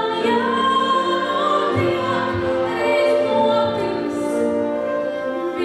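A woman singing into a microphone, with long held notes that move from pitch to pitch.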